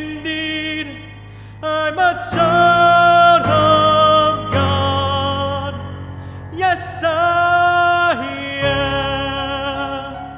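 A man singing a worship song to his own piano accompaniment on a Roland RD-700SX stage piano, in several phrases with a wavering vibrato, the last note held near the end.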